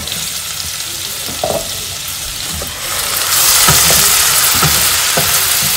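Garlic sizzling in hot butter in a pan, the sizzle getting louder about three seconds in, with a few light knocks.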